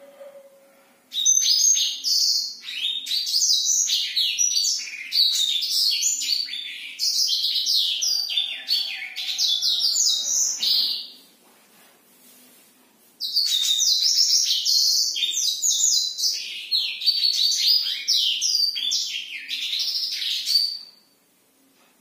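Caged blackthroat (black-throated canary) singing two long, rapid rolling song phrases made of fast high warbling notes. The first starts about a second in and runs about ten seconds; the second follows a two-second pause and stops shortly before the end.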